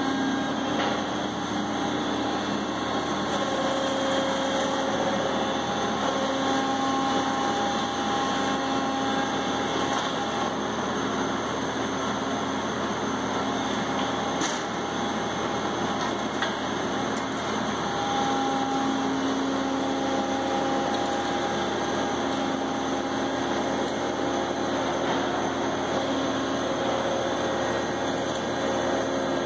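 Electric remote-controlled demolition robots running, a steady hydraulic drone with whining tones that shift in pitch as the Brokk's arm, tracks and outriggers move.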